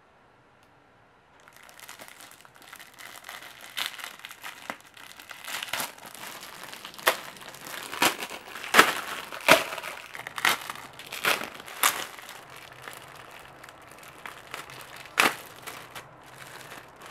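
Clear plastic bread wrappers crinkling as hands handle and pull them open, starting about a second in, with sharp crackles of the plastic that are loudest in the middle.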